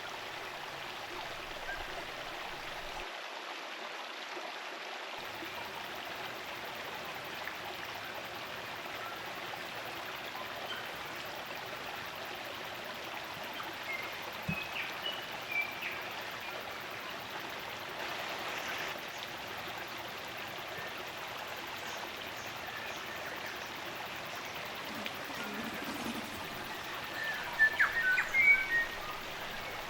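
Spring-fed stream running steadily, with short native bird chirps scattered through it and a louder cluster of calls near the end.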